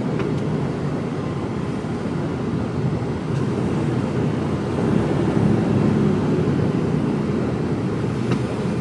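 Mercedes Actros lorry driving, its engine and road noise a steady low rumble heard inside the cab, growing a little louder about halfway through.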